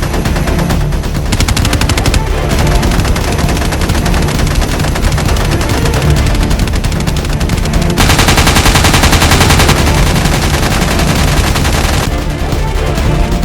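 Rapid machine-gun fire, dubbed in as a sound effect over background music, in several runs of fast, evenly spaced shots. The densest and loudest run comes about eight seconds in and lasts nearly two seconds.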